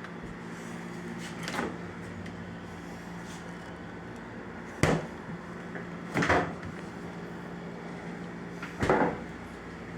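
Four short knocks and clunks, the loudest about five, six and nine seconds in, over a steady low hum.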